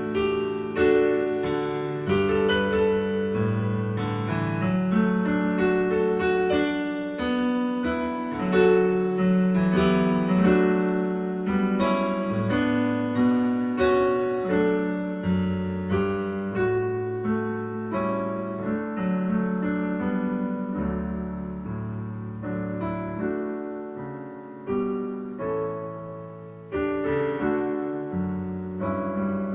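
A hymn tune played on a digital piano in full chords at a steady, unhurried pace. It softens in the second half, then comes back louder near the end.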